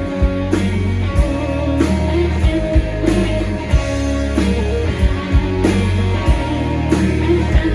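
Live band playing an instrumental passage with no vocals: electric guitar over bass and a drum kit keeping a steady beat.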